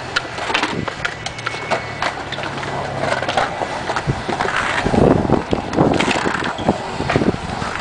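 Skateboard wheels rolling on the concrete of a skatepark bowl, a steady rumble. About five seconds in come sharper knocks and scrapes as the board works the lip and coping.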